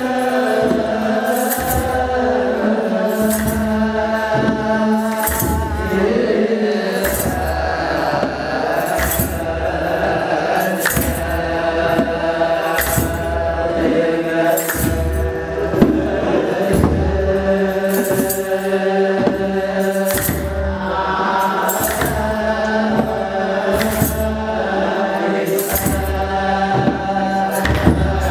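Ethiopian Orthodox liturgical chant (mahlet): a chorus of men singing in unison with long held notes. Kebero drum beats and tsenatsel sistra jingle sharply about once a second.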